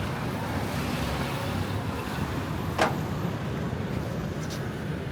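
Outdoor street ambience of road traffic: a steady rumble of cars and motorbikes running along the road. About halfway through there is a single short sharp knock.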